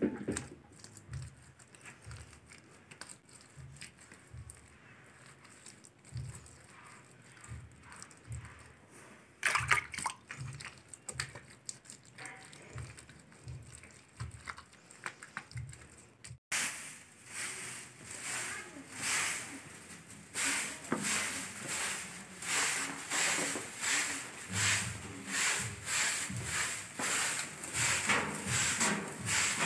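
Hands smearing and patting wet mud plaster onto a clay chulha, with faint wet slaps and scrapes. About sixteen seconds in this gives way to louder sweeping of a dusty floor, steady swishing strokes a little more than one a second.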